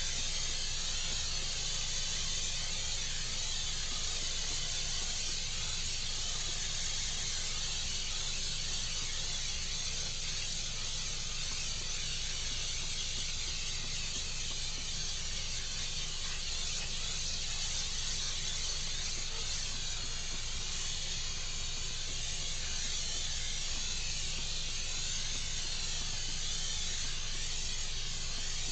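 Aerosol hairspray can spraying in one long, steady hiss as it is swept back and forth over a sheet of paper.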